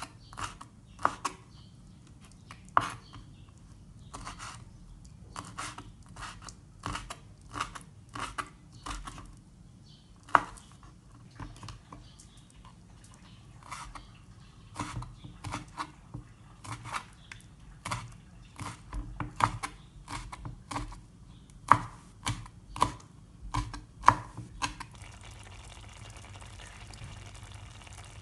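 Kitchen knife chopping raw peeled shrimp on a wooden cutting board: sharp, irregular chops, about one or two a second. Near the end the chopping stops and gives way to the steady hiss of a pan of minced pork simmering in coconut milk.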